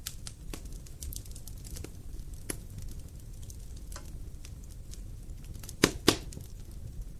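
Wood fire crackling: a steady low rush of burning with frequent sharp pops and snaps, and two louder pops in quick succession about six seconds in.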